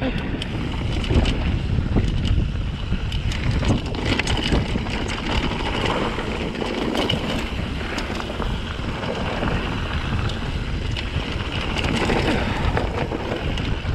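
Wind buffeting the microphone while a mountain bike rolls over rocky trail, with a steady run of small clicks and rattles from the bike and the rocks under the tyres.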